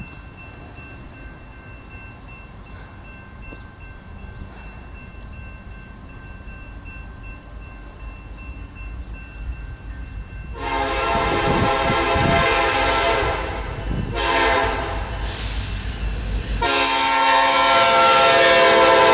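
Grade-crossing warning bell ringing steadily. About ten seconds in, a Union Pacific diesel locomotive's air horn sounds several blasts for the crossing, the last held long and loudest as the locomotive reaches it.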